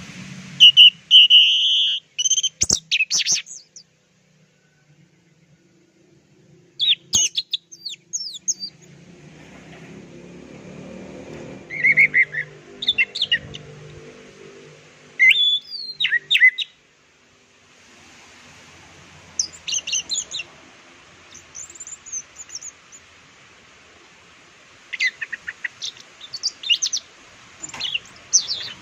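Orange-headed thrush (anis merah) singing in short phrases of rapid, varied high whistles and chirps, with pauses of a few seconds between phrases.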